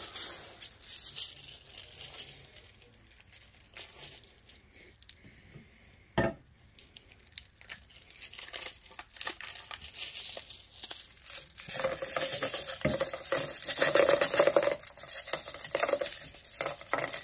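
Plastic bags crinkling and rustling as they are pulled open and handled, with a single sharp knock about six seconds in. The crinkling grows denser and louder over the last five seconds.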